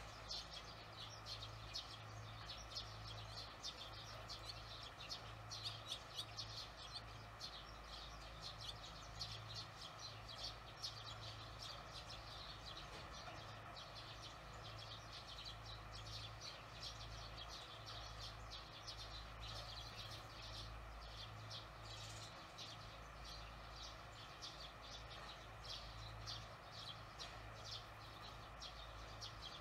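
Barn swallows chirping: a fast, continuous run of short high twitters at a nest, over a steady low hum.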